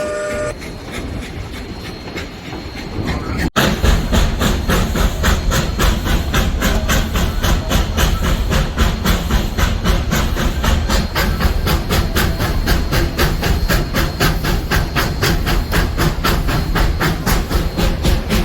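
Steam train on the move: a rapid, even rhythm of beats over a low rumble. The beats start abruptly about three and a half seconds in, after a quieter stretch of hiss and rumble.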